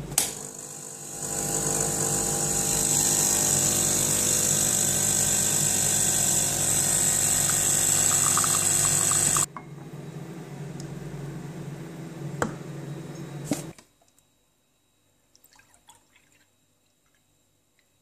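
Isomac espresso machine's pump running while a shot is pulled into two cups, a steady hum with water hiss over it. It is louder for about the first nine seconds, then quieter until it stops about fourteen seconds in.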